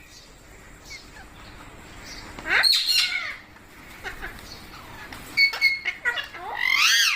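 Pet parrot calling in three bursts: a sweeping call about two and a half seconds in, a few short notes about five and a half seconds in, and a longer wavering call near the end.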